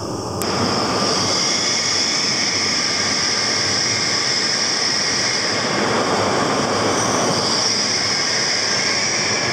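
E5 series Shinkansen train pulling into the platform, its cars running past with a steady rushing noise and a high hiss over it. The noise steps up sharply about half a second in, then holds.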